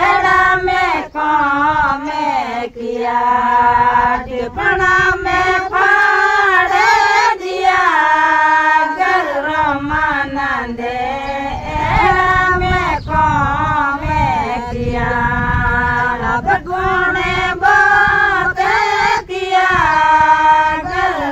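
A group of women singing a Rajasthani harjas, a devotional folk song, together in unison without instruments, in long held phrases broken by short pauses for breath.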